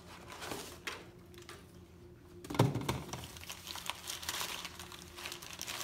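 Brown kraft packing paper crinkling and rustling as a heavy wrapped item is unwrapped by hand. About two and a half seconds in there is a single dull thump, the loudest sound, as a cardboard box is set down on the floor.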